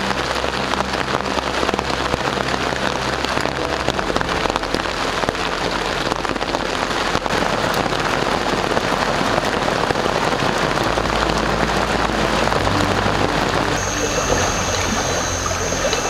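Rain falling steadily on rainforest foliage, a dense even hiss, with low held tones of background music underneath.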